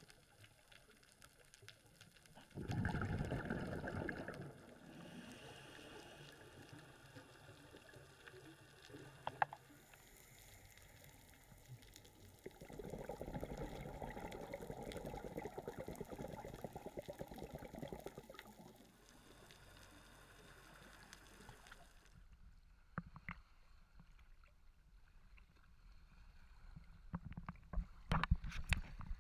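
Underwater, a scuba regulator's exhaled bubbles rush out in two bursts: a short one a few seconds in and a longer one through the middle. Near the end, after the camera reaches the surface, water slaps and splashes around it in scattered sharp clicks.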